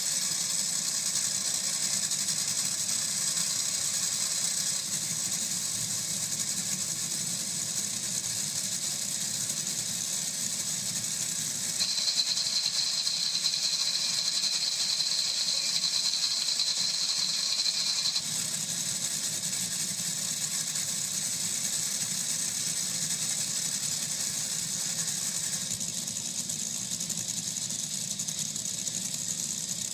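Top Fuel dragsters' supercharged nitromethane V8 engines idling together, a steady rough running with a hiss. A high steady whine comes in about twelve seconds in and drops away about six seconds later.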